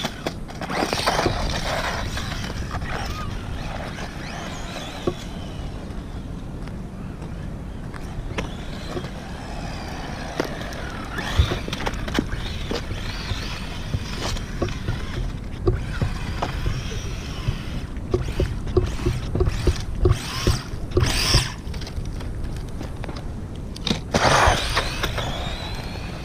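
Small electric RC car's motor whining up and down with the throttle, over a steady noise of its tyres on asphalt. Several sharp knocks and clatters as it bumps and tumbles, with a cluster of them past the middle.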